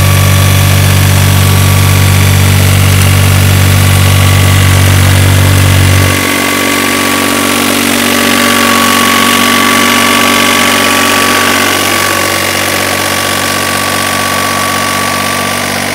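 Engine of a self-propelled hoeing machine running steadily as it works the rows. A heavy low hum drops away suddenly about six seconds in, and the level falls slightly.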